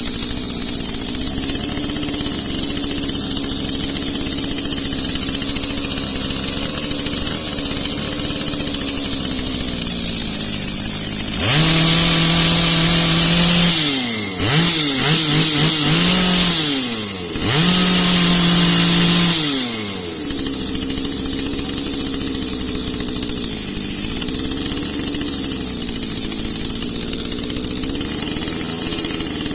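Echo CS-680 two-stroke chainsaw idling, then revved to full throttle about a third of the way in, blipped up and down several times, held at high revs again and let fall back to idle for the rest. The idle pitch wavers slightly.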